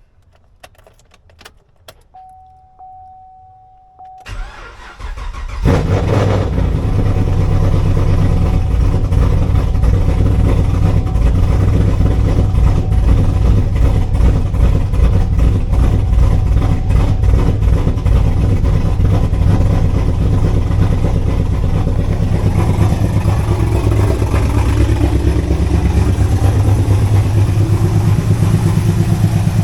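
Chevrolet Camaro's LS3 V8 cold-started after an ECU reset: a steady electronic chime for about two seconds, a brief crank, then the engine catches about five and a half seconds in and idles. The engine is still knocking after the exhaust leak repair, with the cause unknown to the owner.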